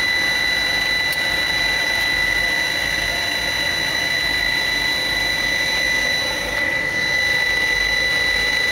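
Jet-fuel-fired boiler burner of a custom steam motorcycle running steadily, a jet-like rushing sound with a steady high tone over it.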